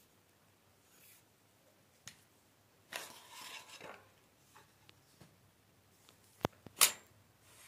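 Kral A12 shotgun being handled: a faint click, a short rustle, then two sharp clicks near the end, the second the loudest.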